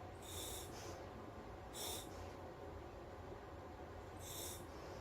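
Breathing through the regulator of a SMACO full-face diving mask on surface-supplied air: three short hissing breaths, each with a thin whistle.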